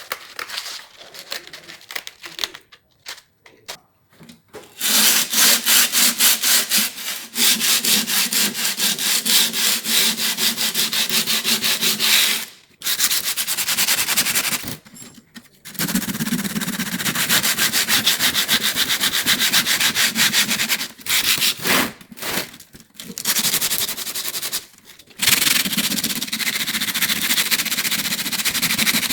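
Abrasive scrubbing of rust from an old metal tool box, in rapid, even back-and-forth strokes. It comes in several long spells with short pauses between them.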